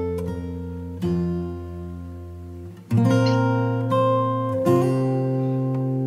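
Background music: an acoustic guitar strumming sustained chords, with a new chord struck three times.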